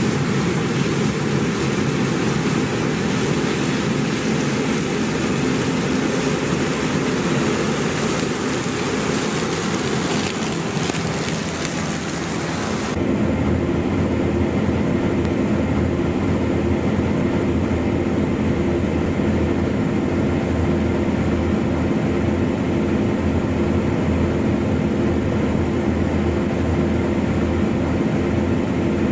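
Claas Lexion combine harvester running steadily under load, a continuous machine drone with a hiss over it. Partway through the sound changes abruptly: the hiss drops away and a steadier low hum with a few held tones comes forward.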